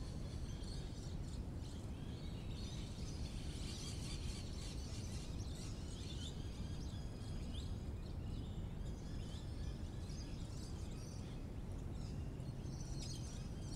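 Small birds chirping and twittering in many short, scattered calls over a steady low rumble.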